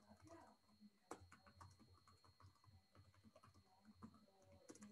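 Faint typing on a computer keyboard: irregular key clicks in quick runs, with a denser cluster near the end.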